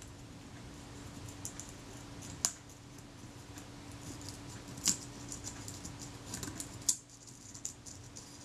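A scalpel blade prying the leatherette covering off a Kodak Retina Reflex IV's metal body gives a run of small crackles and clicks, with three sharper snaps. This is the brittle old glue layer breaking away from the body.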